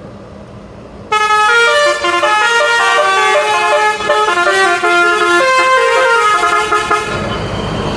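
Basuri telolet horn on a bus playing a quick melody of short, stepped notes, starting about a second in and running for about six seconds before cutting off. A steady rushing noise follows near the end.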